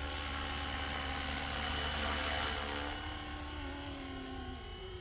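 Electric RC helicopter with a two-bladed main rotor, a scale MD 500 on Flywing electronics, flying past: a steady motor whine over rotor hum. It grows louder as it comes closest about two seconds in, then fades, and its pitch dips slightly near the end.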